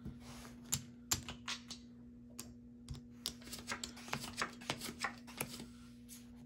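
Casino chips clicking together as they are handled and stacked: a couple of sharp clacks in the first second or so, then a quick run of clicks in the second half. Playing cards slide on the felt table.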